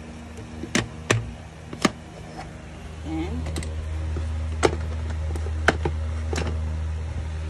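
Sharp plastic clicks and knocks as a blender jar loaded with ginger, onion and garlic is handled and fitted onto its motor base, about six in all. A low steady hum comes up about three seconds in.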